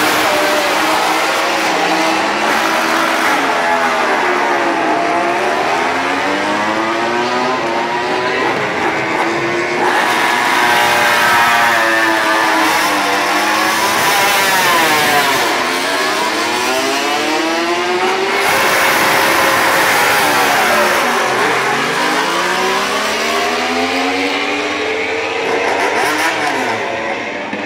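Several MotoGP racing motorcycles' engines revving as they ride past one after another. Each engine's pitch sweeps up and then drops as it goes by, and the engines overlap in a layered racket.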